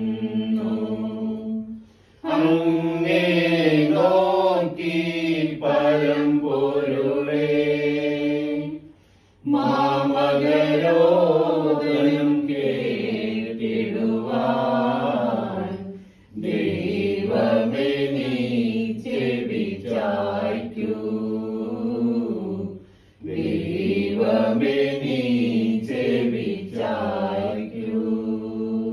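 Wordless, chant-like singing of a slow melody in four long phrases, each separated by a brief pause.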